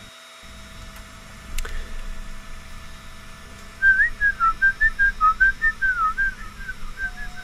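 A person whistling a short wavering tune of quick notes, starting about four seconds in, over a faint steady hum.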